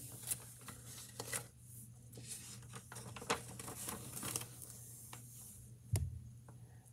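Pages of a picture book being turned and flipped, paper rustling and crinkling in short irregular bursts, with a single sharper knock near the end.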